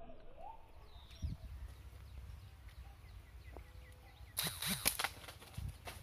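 Small birds chirping faintly, then a sudden cluster of sharp cracks and rustling about four and a half seconds in.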